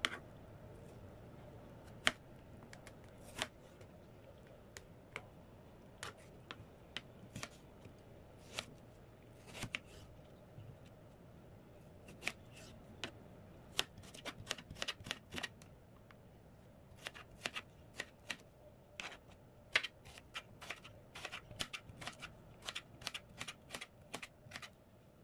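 Knife slicing chayote into strips on a plastic cutting board: irregular sharp taps of the blade hitting the board, coming more often in the second half.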